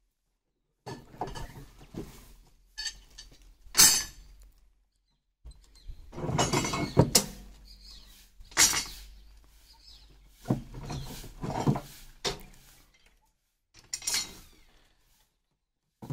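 Steel power-weeder parts being handled, clinking and knocking against each other at irregular moments, with rustling between; the sharpest clanks come about four, seven and nine seconds in.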